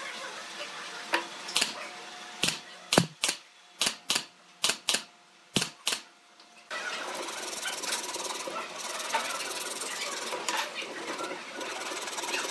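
About ten sharp, irregular knocks as the woven wooden slats of a chair are fastened, then, starting suddenly about seven seconds in, the steady rasp of a hand saw cutting across a pine slat.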